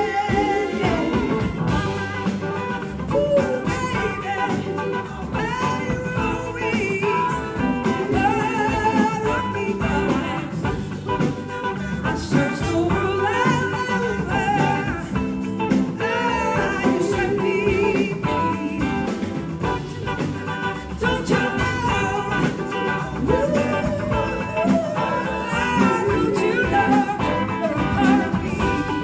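Live blues-rock band playing electric guitars and drums, with a woman singing lead over them.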